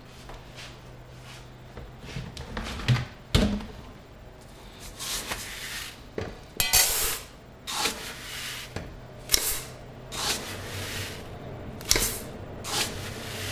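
Uncooked rice being scooped with a plastic cup from a bucket and poured into a metal rice cooker pot: six or seven short hissing pours, about one a second, starting about five seconds in. A couple of knocks come a few seconds earlier.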